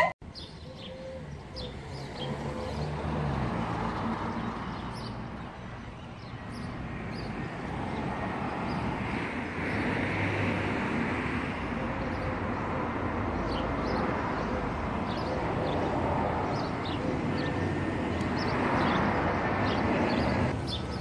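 Outdoor traffic noise swelling and fading as cars pass, with faint bird chirps.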